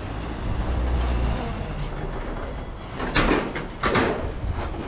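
An Audi convertible creeping up the steel upper deck of a car-transporter truck: a low rumble of engine and tyres, then three short loud clatters in the last two seconds.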